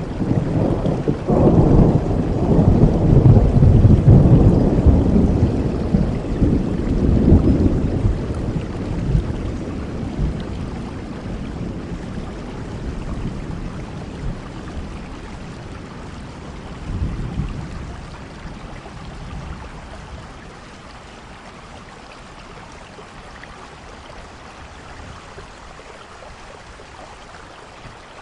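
A long roll of thunder rumbling over steady rain. The thunder is loudest in the first eight seconds and then dies away, with a smaller rumble about seventeen seconds in, leaving only the steady hiss of rain.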